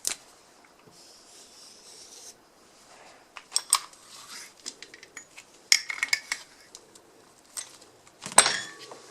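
Metal parts and tools being handled and set down: scattered clinks and clatters with a brief ringing, and a louder metallic clatter near the end.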